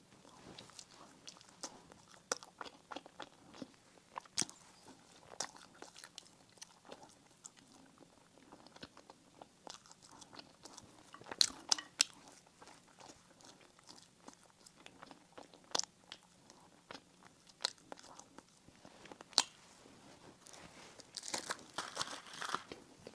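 Close-miked eating sounds: biting and chewing bakery bread and pastries, with many sharp crisp clicks. The loudest bites come about eleven seconds in, and a denser run of crackling comes near the end.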